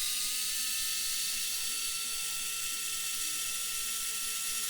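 Electric screwdriver with a 2 mm hex bit running steadily as it backs out a diff cover screw on an RC truck, a continuous geared whir whose pitch creeps up slightly.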